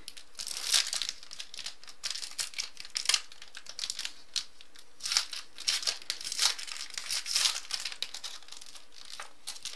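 Foil wrapper of a Bowman Sterling football card pack crinkling and tearing as it is opened by hand, in irregular crackles. The wrapper is flimsy and tears apart easily.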